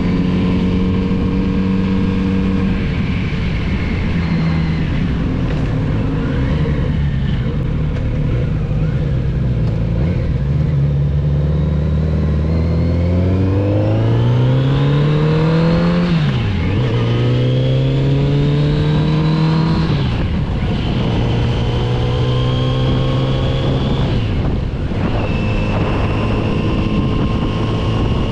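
Kawasaki Z900RS inline-four engine under way: the engine note holds steady, then climbs through the revs about halfway through. Its pitch snaps down in a quick upshift and climbs again, then drops back and settles into a steadier lower note, with a step down near the end. Wind and road noise run underneath.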